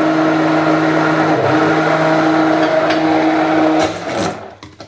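Hand-held immersion blender running steadily with a motor whine as it blends pumpkin cake batter with cream just added; the motor cuts off about four seconds in.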